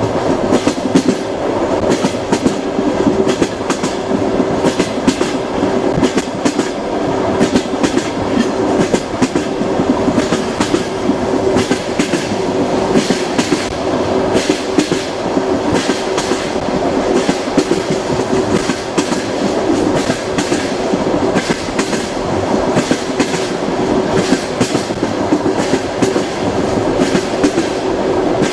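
Passenger train wheels clattering over rail joints: a continuous rolling rumble with a steady low hum, broken by frequent, irregular clicks.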